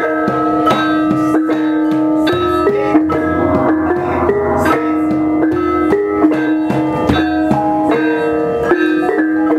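Indonesian gamelan playing: bronze bar metallophones and kettle gongs struck with mallets in a steady stream of strikes, several a second, the notes ringing on and overlapping.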